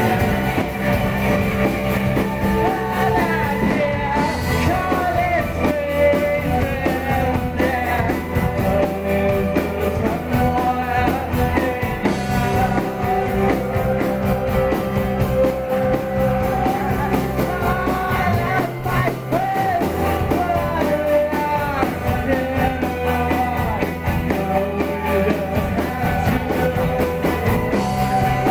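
Live rock band playing, with a singer over electric guitars, drum kit and keyboard.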